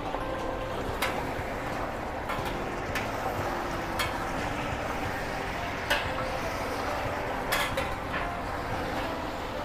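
Oxtail pieces frying in oil and browned sugar with a steady sizzle. A utensil knocks and scrapes against the pan about eight times at irregular intervals as the meat is stirred.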